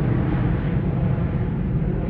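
A loud, steady low rumble with no separate hits or clear pitch.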